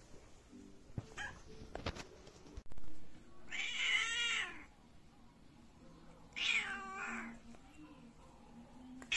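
A domestic cat meowing: two drawn-out meows, each about a second long with the pitch bending up and down, a couple of seconds apart, and a third one just starting at the very end. A few faint clicks come before them.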